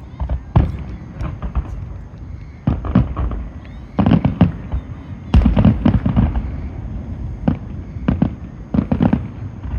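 Aerial fireworks bursting: a rapid string of sharp bangs over a low rolling rumble, with the thickest volley about halfway through.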